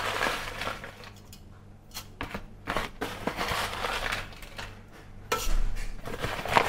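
A spoon scooping rolled oats into a bowl: scattered clicks and scrapes of the spoon against the dish, with a longer, louder rustling scrape about five seconds in.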